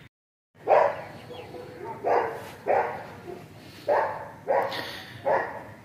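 A dog barking about six times, at uneven intervals.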